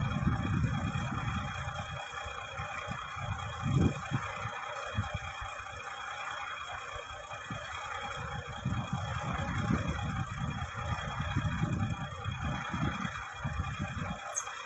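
Bulldozer working: a steady high whine runs over irregular low rumbling and knocking from the machine.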